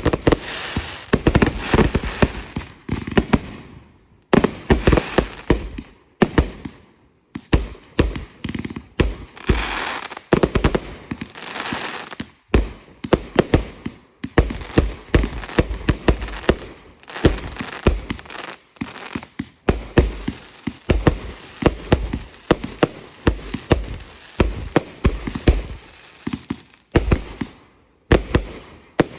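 Consumer fireworks going off in quick succession: a steady barrage of sharp bangs, at times several a second.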